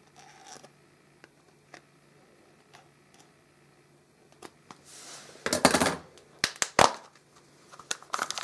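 Small scissors snipping at the tape on a plastic capsule toy's packaging, with faint clicks at first. From about halfway through comes louder rustling and handling of the plastic, with a few sharp plastic clicks.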